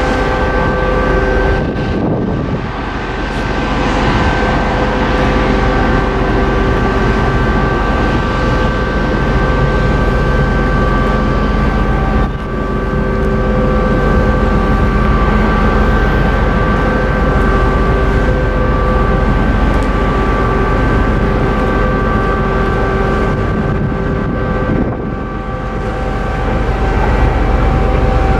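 Car ferry's engines and machinery running with a steady, loud drone made up of several held tones over a low rumble, dipping briefly three times.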